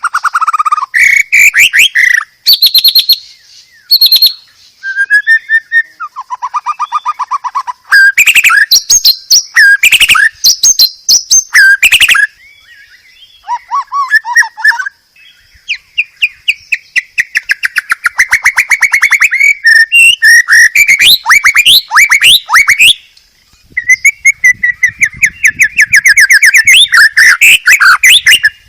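White-rumped shama (murai batu) singing loudly in a long, varied song of rapid trills, whistles and chattering phrases, broken by a few short pauses.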